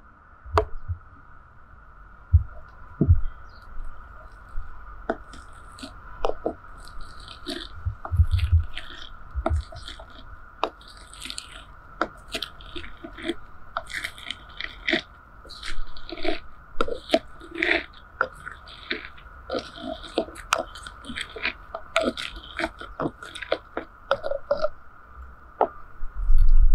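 Pomegranate seeds being crushed by hand inside a clay jug: an irregular run of wet crunches, squishes and small sharp clicks as the arils burst.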